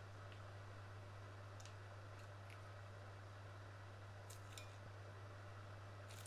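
Near silence with a steady low hum, broken by a few faint, sharp crinkling clicks of a plastic piping bag being squeezed and handled.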